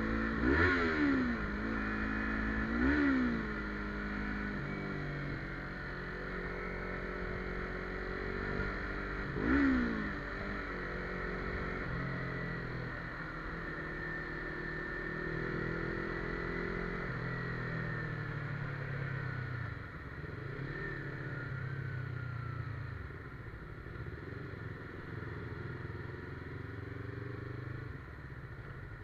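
Yamaha MT-25 motorcycle's parallel-twin engine running under way, revving up and back down sharply three times in the first ten seconds, then running more steadily at lower revs.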